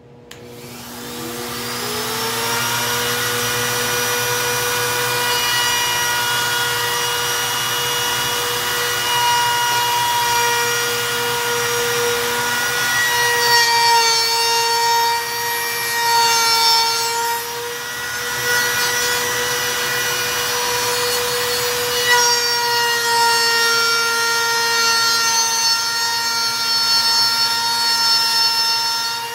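Handheld router switching on and spinning up to a steady whine over the first couple of seconds, then routing a straight groove in a cedar plank. Its pitch dips slightly at times as the bit takes the wood.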